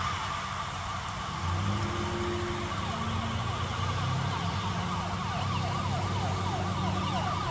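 Emergency-vehicle siren on a fast yelp, sweeping quickly and repeatedly in pitch, growing clearer about halfway through, over a low steady hum.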